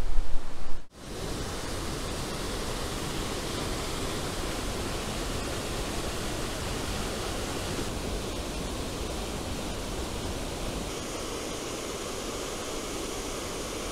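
Steady, even rush of Colwith Force, a waterfall pouring over rocks into a pool. For about the first second, gusty wind buffets the microphone with a loud rumble that cuts off suddenly.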